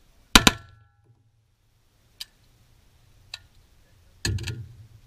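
Two rifle shots from an AR-style rifle fired in quick succession, with a short ringing tail. About four seconds in comes a quick cluster of clanks and knocks.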